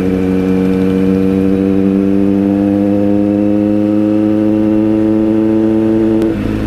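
Kawasaki Z900's inline-four engine with a Racefit aftermarket exhaust, running at a steady mid-range speed under way, its pitch sagging slowly as it eases off. Near the end the steady note breaks off with a click and turns rougher.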